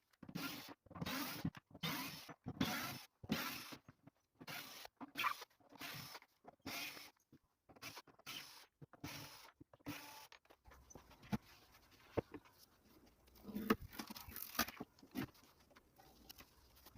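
Rhythmic scraping strokes, about two a second, for some ten seconds, then scattered clicks and light knocks.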